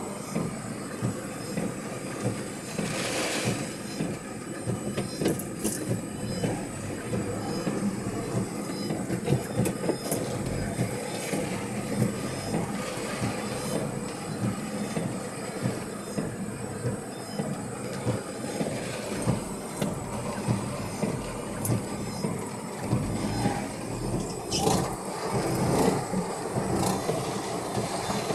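Typhoon-force wind gusting through apple trees, a continuous rumbling buffet on the microphone with louder surges of thrashing foliage now and then.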